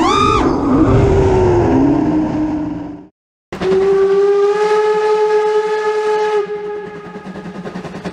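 FPV racing quadcopter's brushless motors whining: a quick throttle punch sends the pitch sharply up and back down, then the whine wavers lower and dies away. After a brief silence comes a steady pitched tone of about three seconds that cuts off suddenly, followed by a fainter buzzing.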